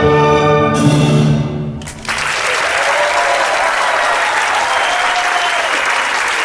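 Orchestral music ends on a held chord that dies away, and about two seconds in an audience breaks into steady applause, with a few voices calling out over it.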